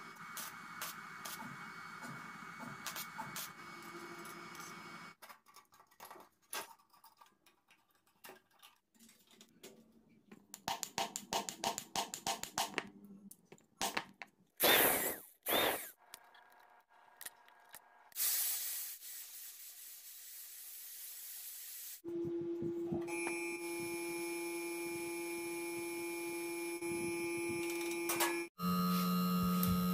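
Sharp metallic taps and knocks of a hammer working a steel strip on a steel block, the loudest about halfway through, then a few seconds of hissing air. In the last third a steady machine hum with several constant tones takes over.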